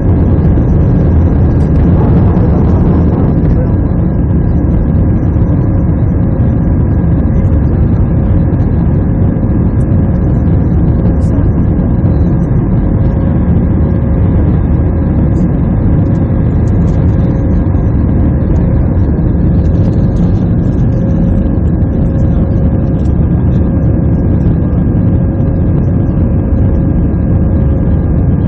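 Jet airliner cabin noise during the climb after takeoff: a loud, steady roar of the engines and rushing air, deepest in the low end, with a faint steady whine running through it.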